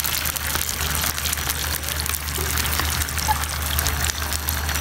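Chopped onions frying in hot oil in a pan, a steady crackling sizzle, as ketchup is poured in from a bowl with a spatula. A steady low hum runs underneath.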